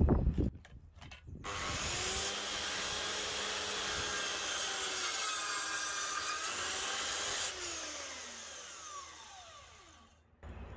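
DeWalt sliding mitre saw started up and pulled down through timber, its motor note dipping under the load of the cut and recovering, then switched off and winding down with a falling whine. A few knocks come first as the wood is set against the fence.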